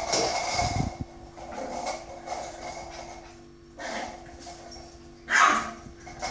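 Yorkshire terrier puppy playing on a tiled floor: scuffling in the first second, then one short, loud bark about five seconds in.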